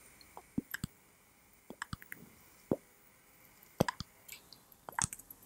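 A tobacco pipe being lit and puffed on: a scattering of small lip pops and clicks at the pipe stem as the smoker draws the flame into the bowl.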